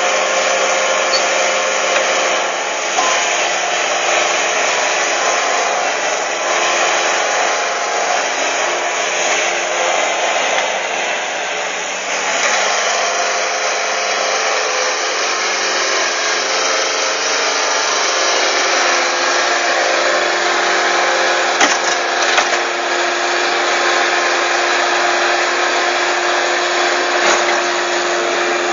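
Work machine running: a loud, steady grinding and whirring noise with a few brief clicks about three-quarters of the way through.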